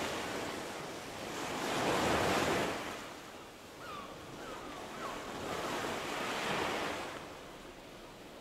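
Surf washing ashore with wind, a rushing noise that swells and fades about every four seconds.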